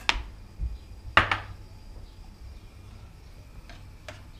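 Two sharp clacks of kitchen utensils and cookware, about a second apart, then a faint tap near the end.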